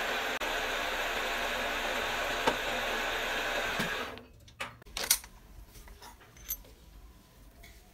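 Metal lathe running steadily on a thin steel rod, cutting off about four seconds in. A few light metallic clicks and knocks follow as the workpiece is handled in the chuck.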